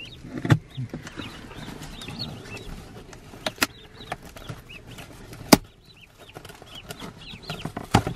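Day-old bronze broad-breasted turkey poults peeping over and over inside their cardboard shipping box. A few sharp knocks and scrapes come from the box being handled and opened; the loudest land about half a second in and again midway.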